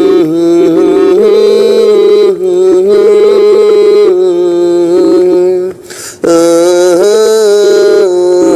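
Kannada devotional folk song music between sung lines: a held melody line of long notes with slow pitch slides, breaking off briefly about six seconds in.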